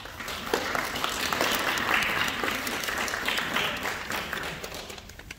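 Audience applauding: a round of hand-clapping that builds within the first second, holds, and fades away near the end.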